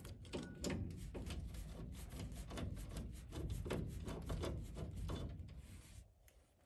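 Screwdriver working loose the fasteners that hold a metal electrical junction box to a furnace cabinet: quick, irregular metal clicks and scraping that stop about six seconds in.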